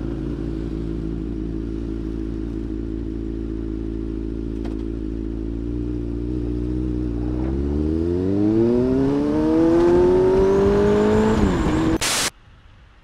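Motorcycle engine running at a steady low pitch, then accelerating with its pitch rising over about four seconds. A brief loud burst of noise follows near the end, and the sound drops away.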